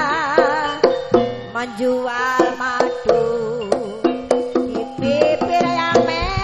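Live jaranan gamelan music: frequent sharp kendang drum strokes under a sustained, wavering melody line.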